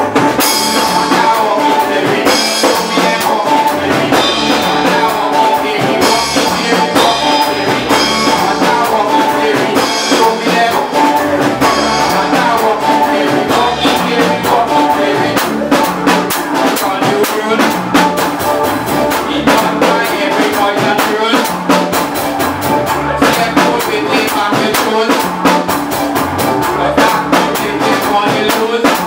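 Soca band playing live, with drum kit and guitar over a steady beat.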